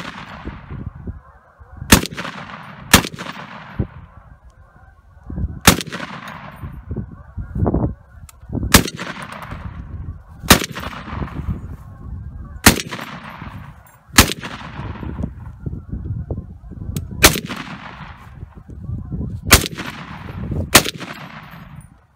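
Semi-automatic Browning 1919A4 machine gun firing single shots, about ten spaced one to three seconds apart, each loud report followed by an echo that fades away.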